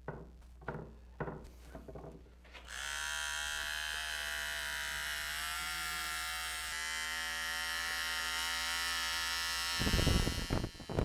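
A few scrapes of a plastic squeegee over epoxy-wet fiberglass cloth, then an electric heat gun switches on and runs with a steady whine, warming the epoxy so it thins and gives up the air trapped in the cloth. About a second before the end, loud low rumbling gusts join in.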